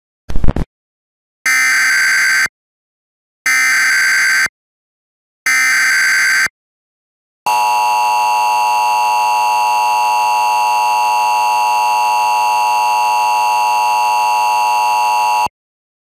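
Emergency Alert System tones: a short sharp blip, then the SAME digital header as three harsh one-second data bursts about a second apart, then the EAS attention signal, a steady two-tone alarm held for about eight seconds that cuts off sharply.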